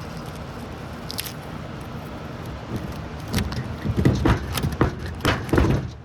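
Metal knocking, clinking and scraping as a transformer is pried apart, a run of sharp knocks starting about halfway through and loudest near the end, over a steady rushing background that drops away at the very end.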